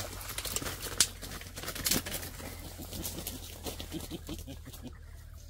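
Dry vines and stems crackling and snapping under a person's feet as he stands and shifts his weight on them, with a sharp snap about a second in and another near two seconds.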